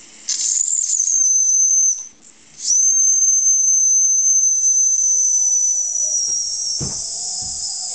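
Steam whistle on a late-1970s Wilesco live-steam stationary engine's boiler blown twice: a short high-pitched blast of under two seconds, then a longer one of about four seconds whose pitch slowly sags before it fades into a steam hiss.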